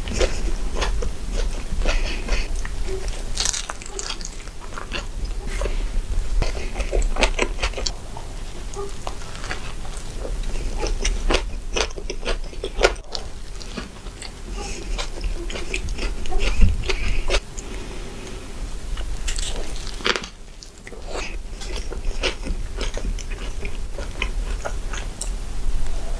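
Close-miked eating sounds of a double cheeseburger being bitten and chewed: soft bites into the bun and wet chewing, with many small mouth clicks and smacks.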